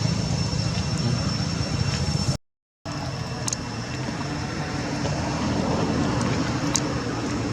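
Steady outdoor background noise, a rumble and hiss like distant road traffic, with a few faint ticks. It cuts out completely for about half a second a little over two seconds in.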